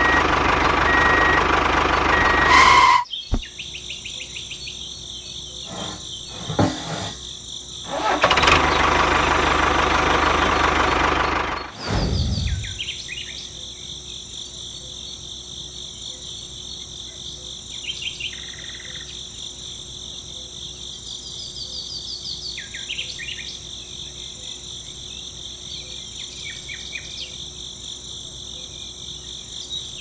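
A small motor runs loudly, cuts out about three seconds in, runs again for a few seconds, then stops. Afterwards a steady high-pitched buzz remains, with bird chirps now and then.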